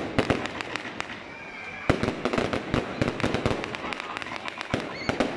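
Consumer firework batteries firing: a rapid run of sharp bangs from launches and bursting shells, with crackling stars that thicken from about two seconds in.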